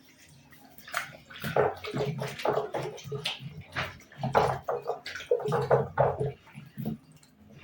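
Water splashing and sloshing in uneven bursts as a pumpkin is washed clean by hand.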